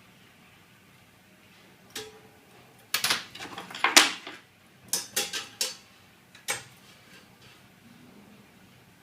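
Sharp metallic clinks and clatters from tools being handled against steel cable tray during marking out, starting about two seconds in, bunched together in the middle with the loudest near the middle, and a last single clink later on.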